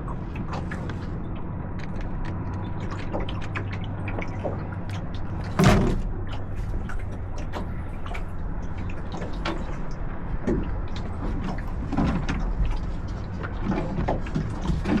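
Small sailboat under way: steady wind and water noise with scattered small clicks and knocks from the boat's fittings, and one louder knock about six seconds in.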